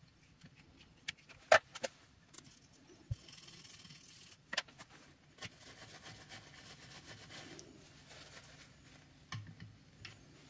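Faint workbench handling sounds: a few sharp clicks and taps of small tools against a circuit board, the loudest about a second and a half in. Then a toothbrush scrubs the circuit board, a soft scratchy brushing.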